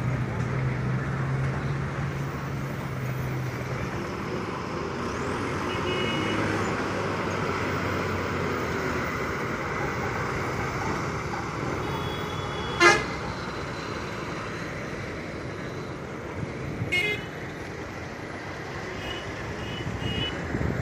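Heavy lorry engines running steadily as the trucks round a hairpin bend, with road traffic noise. Short horn toots sound now and then, the loudest a sharp blast about two-thirds of the way through.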